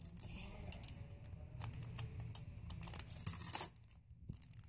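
Crinkly foil blind bag being handled and opened: a string of sharp, irregular crackles and rustles, loudest a little past three seconds in, then a brief lull.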